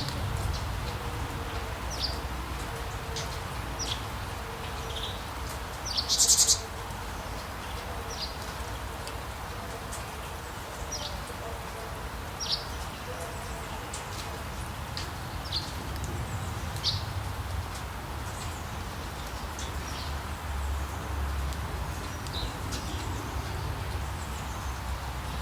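Steady rain with a low rumble underneath, and short bird chirps scattered throughout. One louder, buzzy call comes about six seconds in.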